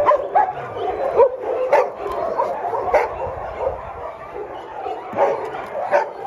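A pack of dogs whining and yipping over one another, with occasional barks: many short, overlapping calls from dogs waiting to be fed.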